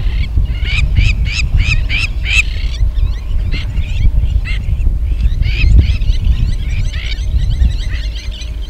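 A flock of waterfowl calling: a quick run of loud calls in the first couple of seconds, then softer, busier chattering calls, over a steady low rumble.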